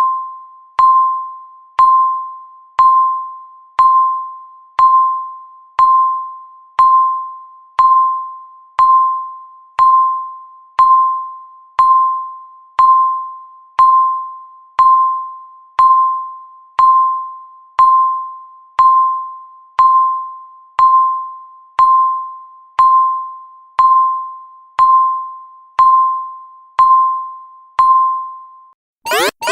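Electronic countdown-timer beep sounding once a second: a single clear tone, each fading out before the next, about 29 in all. Near the very end the beeps stop and a loud alarm of rapidly repeating, sweeping tones starts, marking zero.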